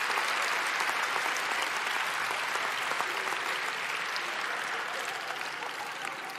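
A theatre audience applauding, a dense patter of many hands clapping that slowly dies down.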